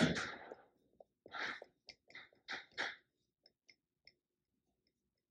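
Felt-tip marker tapping dots onto paper: a louder scuff right at the start, several short scratchy taps over the next two seconds, then a few faint ticks.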